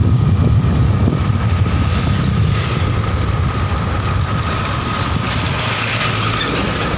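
Steady rumble of riding in traffic with a bus close behind: wind and road noise and engines running, with a thin steady whine throughout.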